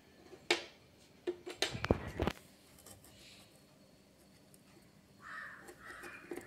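Cardboard and a steel ruler handled on a tabletop: a few sharp taps and knocks about half a second to two seconds in, then a soft scraping rub near the end.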